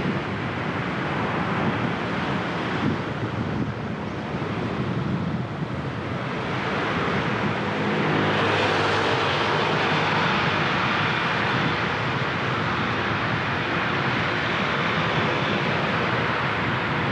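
Traffic on a wet city road: a steady rush of tyres and engines that grows louder and brighter about six seconds in and stays that way.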